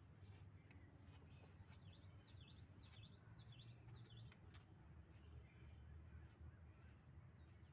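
A bird calling faintly: about five quick notes, two a second, each sliding down in pitch, from about one and a half to four seconds in. Under it runs a low steady rumble.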